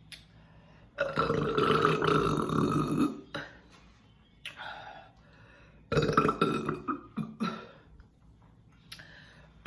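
A woman belching loudly after drinking sparkling water: one long burp of about two seconds starting a second in, and a second long one about six seconds in, with fainter, shorter sounds between.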